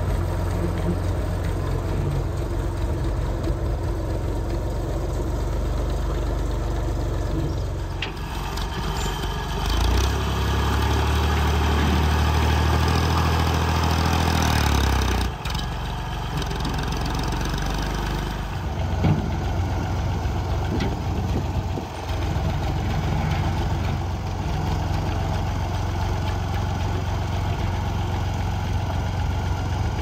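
Massey Ferguson backhoe loader's engine running while the front loader pushes dirt. About ten seconds in it revs up for around five seconds, rising in pitch, then drops back suddenly and carries on running steadily.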